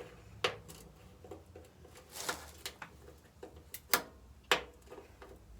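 Scattered sharp clicks and light knocks from tools and engine parts being handled during a motorcycle top-end teardown, the loudest about four seconds in.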